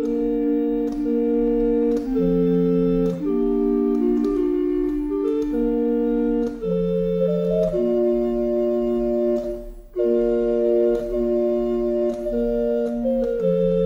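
Organ music playing slow, sustained chords that change every second or two, with a short break about ten seconds in.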